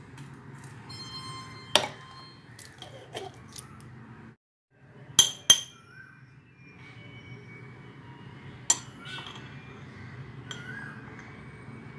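A spoon clinking against a frying pan as salt and spices are tipped in: four sharp clinks, two of them close together near the middle, over a steady low kitchen hum.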